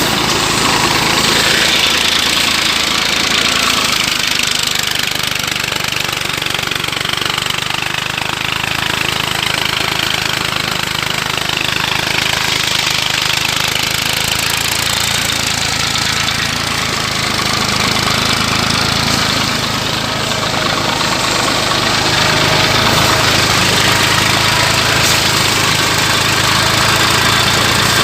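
Engine-driven paddy thresher running steadily while rice is threshed: a constant low engine drone under an even hiss.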